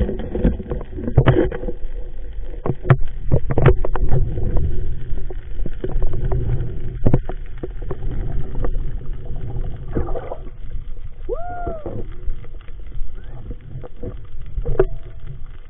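Underwater rumble of water moving against a submerged camera housing while a spearfisher swims, with scattered sharp knocks from the housing and gear, most of them in the first few seconds. A brief rising-then-falling tone comes about eleven seconds in.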